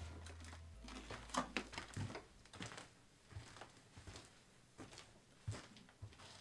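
Scattered soft knocks and clicks of footsteps on a wooden floor and a plank door being shut, with a low hum during the first two seconds.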